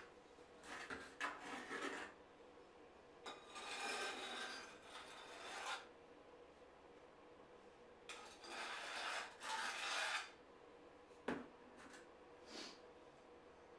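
Hand work setting wall tile around a shower niche: three stretches of rasping, scraping noise, each a second or two long, followed later by a single sharp click.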